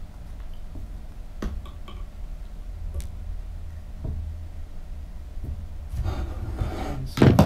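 Hands working a small wire tool and a cardboard model rocket body tube: a few faint clicks, then a rustle about six seconds in and one short, louder knock near the end, over a low steady hum.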